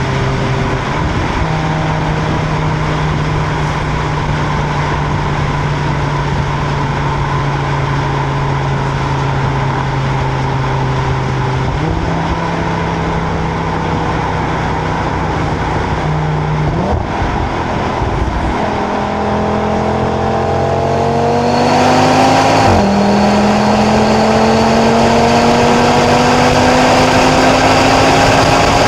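2025 Audi RS3's turbocharged five-cylinder engine heard from its stock exhaust: a steady cruising note at first, then the pitch steps up and the engine pulls hard, its note rising and growing louder, dropping once at an upshift and climbing again, with road and wind noise underneath.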